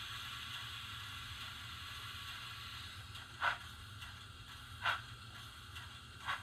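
Sound decoder of a model Shay steam locomotive playing through a small speaker: a steady steam hiss fades out about three seconds in, then slow steam chuffs begin, three of them about a second and a half apart. A low hum runs underneath.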